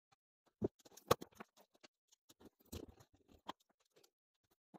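Scattered clicks and light clatter of grey plastic-roadbed N scale track sections, some with feeder wires, being handled and dropped into a clear plastic bin. The sharpest click comes about a second in, with a quicker run of clicks near three seconds.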